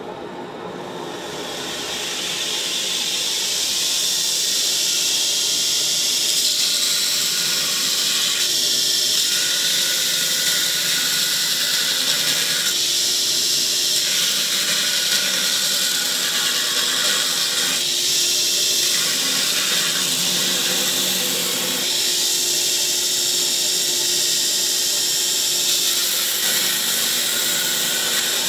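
Belt grinder running with a mild steel forging die pressed against its abrasive belt, grinding down fresh weld beads: a steady grinding hiss over the motor's constant hum. It builds up over the first couple of seconds, then holds.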